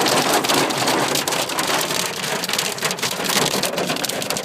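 Hail falling heavily: a dense, steady clatter of many small ice pellets striking hard surfaces.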